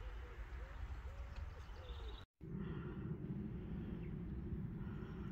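Outdoor background with a steady low rumble and a dove cooing faintly in repeated short phrases during the first couple of seconds; the sound drops out for a moment about two seconds in.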